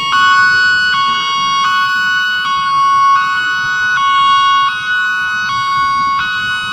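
Electronic outdoor warning siren sounding a two-tone hi-lo signal, switching between a lower and a higher pitch about every 0.8 seconds.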